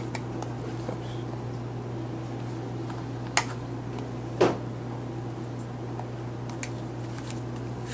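Needle-nose pliers clicking and ticking against thin wire and the aluminum crimp cap of a glass serum vial as the wires are bent back up, with two sharper clicks around the middle. A steady low hum runs underneath.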